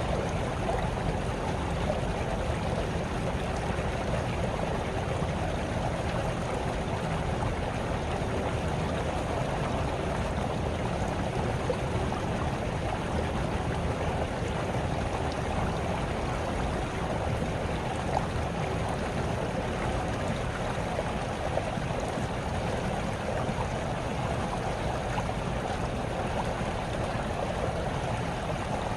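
Small brook babbling steadily, its water trickling over stones and rippling the surface.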